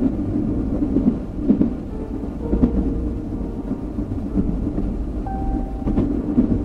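Steady low rumble of a moving passenger train heard from inside the car, with occasional sharp clacks from the wheels and a few brief faint whines.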